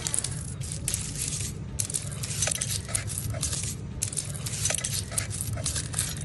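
Coins clinking and rattling against each other and the broken pieces of a piggy bank as the savings are handled and sorted, in many irregular clicks and short scrapes.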